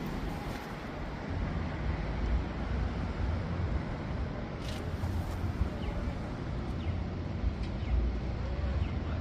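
Outdoor city night ambience: a steady low rumble of road traffic, with a short sharp click about halfway through.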